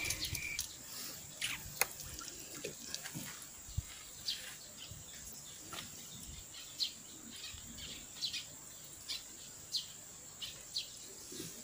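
Quiet outdoor ambience: a steady high-pitched insect trill, with short bird chirps scattered through it every second or so.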